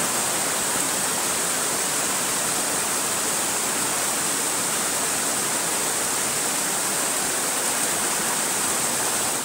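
Waterfall rushing: a steady, even hiss of falling water that cuts off suddenly at the end.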